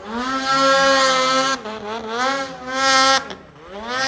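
Snowmobile engine revving high, its pitch dropping as the throttle is let off and climbing again as it is opened, twice.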